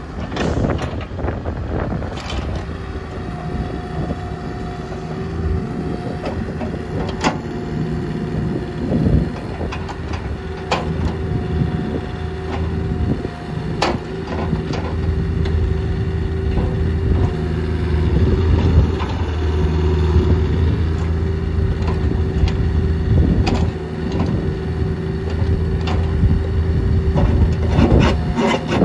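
A Caterpillar 304C mini excavator's diesel engine running as the boom, arm and bucket are worked hydraulically. A steady whine sits over the engine hum, which grows stronger in the second half, with scattered sharp clanks.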